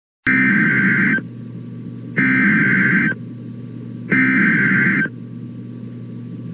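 Emergency Alert System SAME header: three bursts of harsh digital data tones, each just under a second long and about a second apart, encoding the start of a tornado warning. A steady low hum continues between the bursts.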